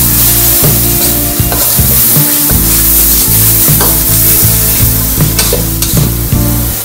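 A flat spatula scraping and stirring a watery onion, green-chilli and spice masala in a metal wok, with repeated scrapes over a steady sizzle. Background music with steady tones plays underneath.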